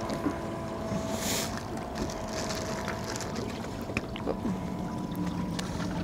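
Open-water boat ambience: wind on the microphone over a steady low hum with a few faint steady tones, one of which drops in pitch about four seconds in. A light click or two as a fluke is handled on the boat's cooler lid.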